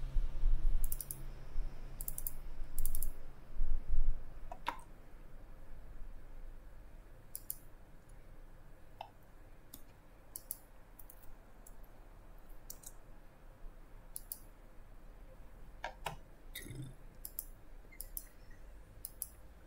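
Computer mouse clicking: scattered short clicks, many in quick press-and-release pairs, with a low rumble during the first few seconds.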